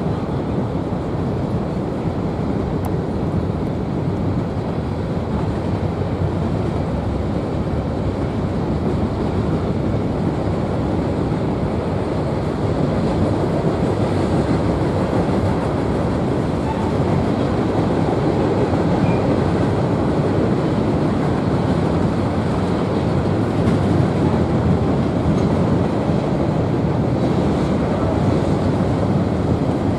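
Freight cars of a mixed manifest train rolling past: steady noise of steel wheels running on the rails, a little louder from about halfway through.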